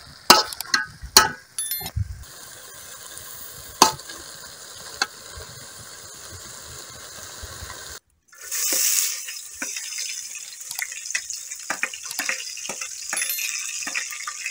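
A spoon knocking and scraping against a metal cooking pot as greens are stirred, with several sharp knocks in the first two seconds over a faint hiss of cooking. After a break about eight seconds in, a louder steady hiss of food cooking in the pot over a wood fire, with many small clicks and pops.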